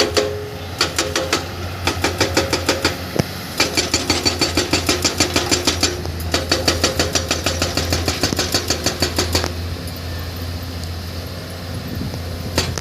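Hyundai PC210 excavator's diesel engine running steadily, with bursts of rapid, even metallic clicking, about seven a second with a faint squeal, that stop about three-quarters of the way through.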